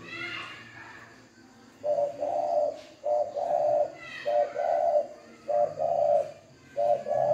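Spotted dove cooing in its cage: five repeated coo phrases, each a short note followed by a longer one, starting about two seconds in. This is the coo that keepers call 'khiển khách'.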